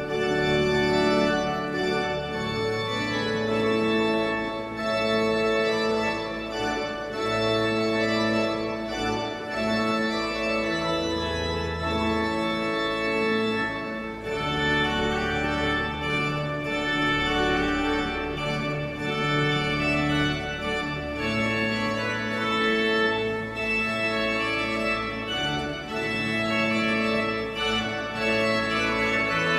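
Pipe organ playing processional music: full, sustained chords that change every second or two at a steady loudness.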